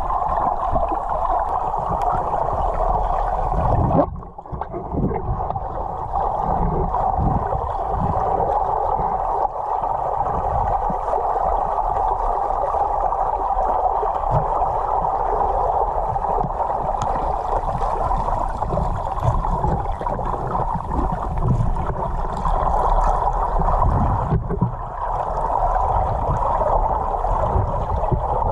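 Muffled water noise recorded by an underwater camera: a steady rush and gurgle, dipping briefly about four seconds in and again a few seconds before the end.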